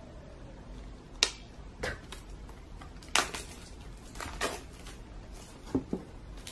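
Hands handling a shrink-wrapped cardboard album box: about half a dozen sharp taps and clicks of fingers and plastic wrap, spaced out over several seconds.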